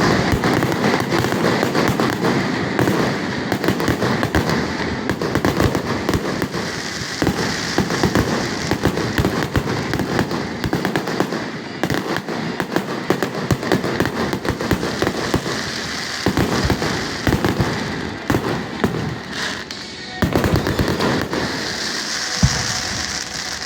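Fireworks display: a dense, continuous run of bangs and crackling, easing briefly near the end before picking up again.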